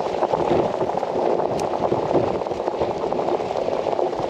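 Steady wash of choppy water against the hull of a small boat, with a few faint clicks.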